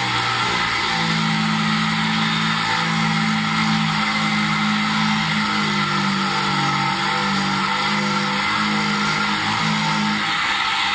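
ADEMS GMT sharpening machine running with its abrasive wheel grinding the bevel of a pair of cuticle nippers: a steady hiss of the wheel on steel over a steady low motor hum.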